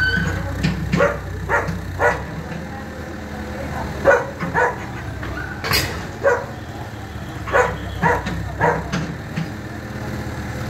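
A dog barking repeatedly, about a dozen short barks at uneven intervals, over a steady low engine hum that eases about two seconds in.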